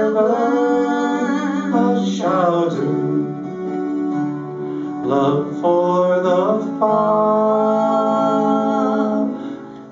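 A man and a woman singing a slow country-gospel song in harmony, holding long drawn-out notes over a strummed acoustic guitar; the final note fades away near the end.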